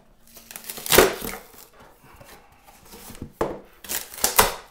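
Paperboard tearing as an insert glued in at the corners is ripped out of a MacBook Air box. One loud rip comes about a second in, then several more rips in quick succession near the end.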